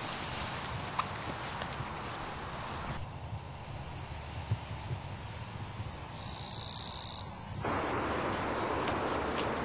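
Insects chirping in a rapid high-pitched pulse, with a wide steady hiss coming up near the end.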